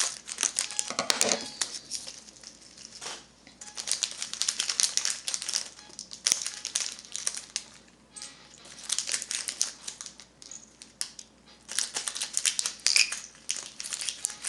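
Plastic bags of googly craft eyes crinkling as they are handled, in several bursts of crackling a few seconds long with short quiet gaps between.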